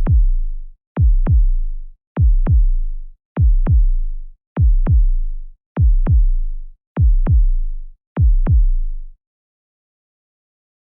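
Heartbeat sound effect: eight deep, booming double thumps (lub-dub), about fifty beats a minute, stopping about nine seconds in.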